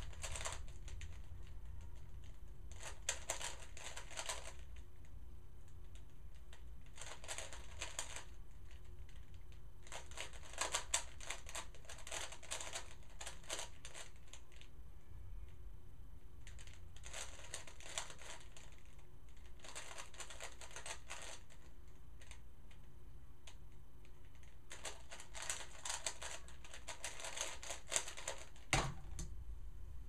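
Plastic 3x3 Rubik's cube being turned during a blindfolded solve: rapid clicking layer turns in about seven runs of one to four seconds, with pauses of a few seconds between them. One sharper knock comes near the end.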